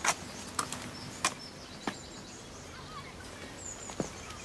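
A series of short sharp knocks, about one every two-thirds of a second, then one more near the end, over faint outdoor background with a few high bird chirps.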